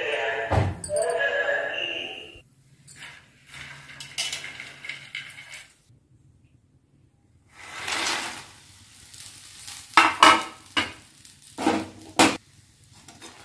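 Makhana (fox nuts) frying in desi ghee in a pan with a soft sizzle. Near the end, a metal slotted spatula clatters and scrapes against the pan several times.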